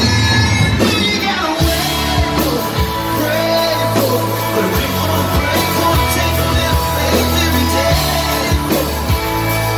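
Live country band performance: a male lead singer sings into a microphone over electric guitar, bass and drums.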